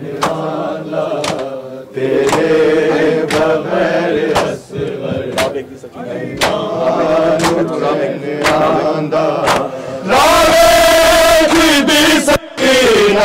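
Men chanting a Shia mourning nauha in unison over rhythmic matam, bare hands striking bare chests about once a second. About ten seconds in the chanting turns much louder, a strong held voice over the crowd, then breaks off for a moment near the end.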